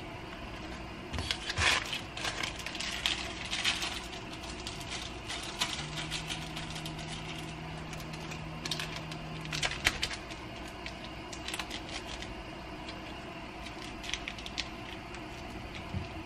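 Plastic ramen seasoning packets crinkling and ticking as they are handled, shaken and emptied over a pot, with scattered small clicks. A low steady hum sounds for a few seconds in the middle.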